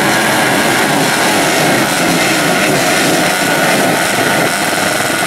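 A pack of small motorcycle engines running together on the start line, a loud, steady mix of overlapping engine noise.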